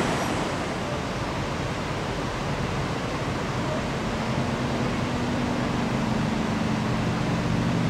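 Steady rushing of river water over falls and rapids. About four seconds in, a steady low hum joins it.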